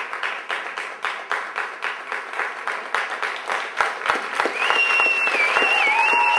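Theatre audience applauding, clapping together in a steady rhythm of about five claps a second, swelling louder about four seconds in as the performers take their bow. Near the end a long high whistle rises over the applause.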